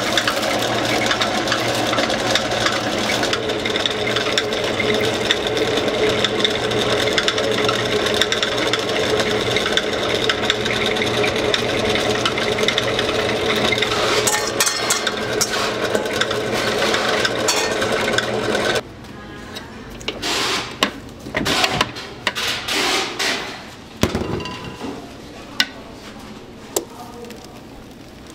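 Stand mixer running steadily with a whine, its wire whisk beating castella sponge-cake batter in a steel bowl. It cuts off abruptly about two-thirds of the way through, and scattered knocks follow.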